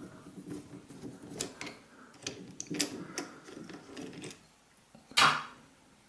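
Screwdriver loosening the terminal screws on a fridge compressor's start relay and overload block: faint, irregular small clicks and ticks of metal and plastic. About five seconds in there is one louder, short burst of noise.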